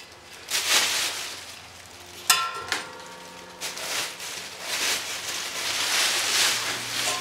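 Handling and rustling noises, with a sharp metallic clang that rings briefly about two seconds in and a smaller knock just after. A noisy rustle builds toward the end.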